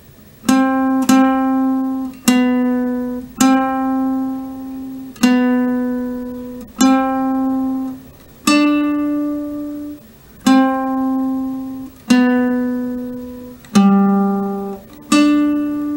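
Classical guitar playing a single-note melody slowly: about a dozen plucked notes, one at a time, each left to ring and fade before the next.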